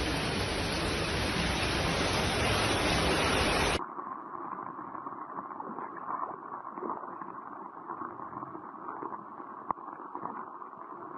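Heavy rain pouring down, a steady hiss. About four seconds in it cuts to another recording of the rain that is quieter and more muffled.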